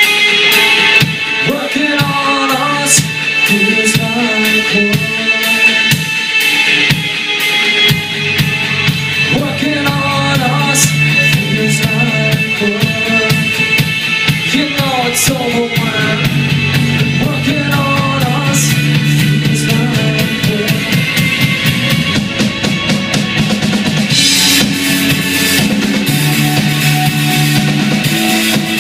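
Live rock band playing an instrumental stretch: an electric guitar lead with bending notes over drum kit and bass guitar. Cymbals open up into a wash about 24 seconds in.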